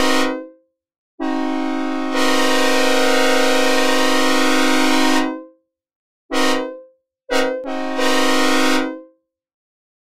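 Synthesized recreation of a Nathan K5HL five-chime locomotive air horn, dry and without reverb, sounding a sequence of blasts. One blast cuts off just after the start, then a long blast of about four seconds that comes in softer and reaches full strength about a second later, then a short blast, and a final blast of about a second and a half that stutters as it starts, ending cleanly near the end.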